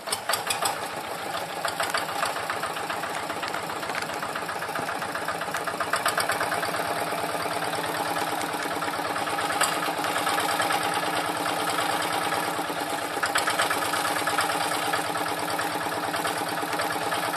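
Single-cylinder horizontal diesel engine of a two-wheel hand tractor idling steadily, with an even, rapid knocking beat.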